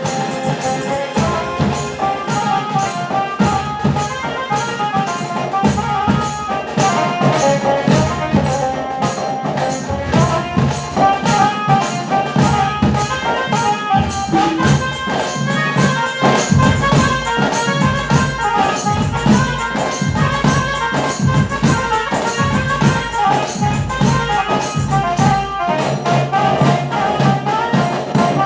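Band music: brass playing a melody over fast, driving tasa drumming, with a steady dense beat throughout.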